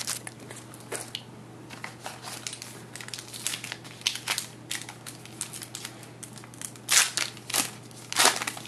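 Wrapper of a trading card pack crinkling and being torn open by hand: a run of short crackles, with two louder rips near the end.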